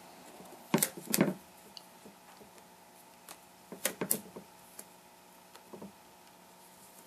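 Rubber bands being pulled off a plaster slip-casting mold: sharp snaps as they spring loose, in two close pairs about a second in and about four seconds in, with lighter ticks of handling between.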